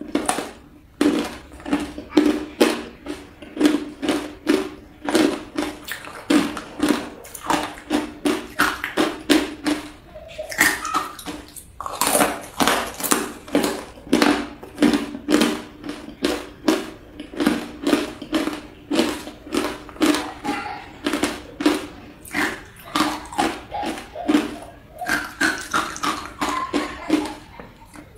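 Ice being bitten and chewed close to the microphone: a fast, unbroken run of sharp crunches, about two to three a second.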